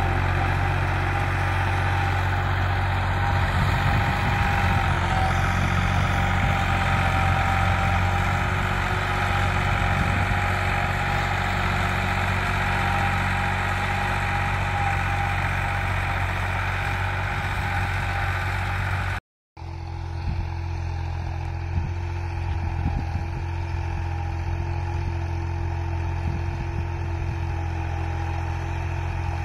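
Massey Ferguson 260 tractor's three-cylinder diesel engine running steadily under load while pulling an eleven-tine cultivator. The sound drops out briefly about two-thirds through, then carries on lower and more distant.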